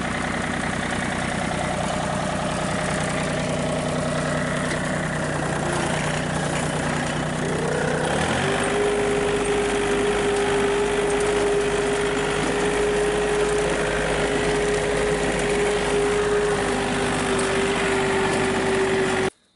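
Engine of a green farm vehicle running as it drives over a field. About halfway through the engine note changes and a steady whine sets in and holds, and the sound cuts off abruptly just before the end.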